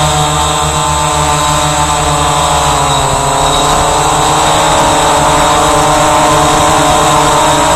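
Walkera Voyager 3 quadcopter's electric motors and propellers whining in flight, heard up close from the drone's own onboard camera. The pitch dips briefly about three seconds in as the motors ease off, then climbs back.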